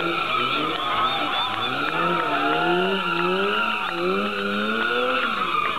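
Car engine revving up and dropping back in repeated pulls, about once a second, over a continuous tyre squeal as the car slides through a manoeuvre.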